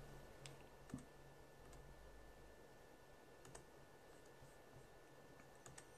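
Near silence broken by a handful of faint, scattered clicks as the laptop is operated, the clearest about a second in.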